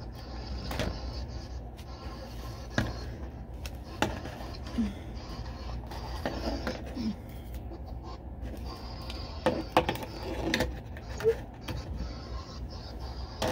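Handling noise: scattered light knocks and clicks, about eight to ten of them, with a cluster about ten seconds in, over a steady low hum.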